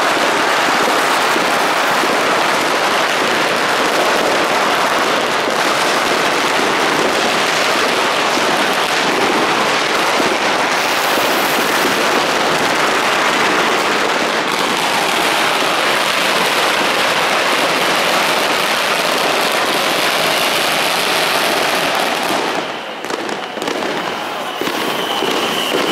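Dense, unbroken crackling of many fireworks and firecrackers going off at once, a barrage of countless small pops and bangs. A steady high whistle joins in near the end.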